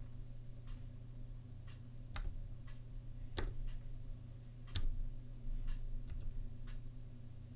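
Single keypresses on the Zilpzalp keyboard's Kaihua (Kailh) Twilight low-profile switches: about ten separate clicks at uneven intervals, roughly one a second, with the loudest near the middle, over a steady low hum.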